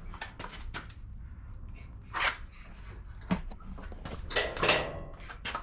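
Dent being pulled out of a car's front fender by hand: scattered clicks and knocks, with two louder brief noises about two seconds in and near the end.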